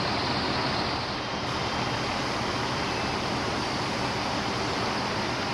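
Steady rushing noise at a working house fire: fire apparatus running in the street and water spraying from hose streams, with no single event standing out.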